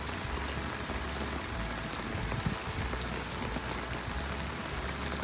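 Heavy rain falling steadily, with scattered sharp ticks of single drops landing close by.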